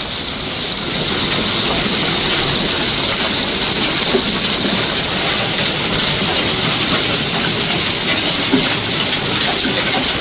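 Heavy hail pelting down, a dense, steady clatter of countless small impacts that grows louder about a second in.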